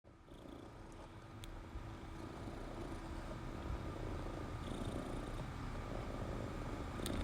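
A cat's low, steady rumble, which the owner calls snoring. It grows a little louder over the first couple of seconds, then holds.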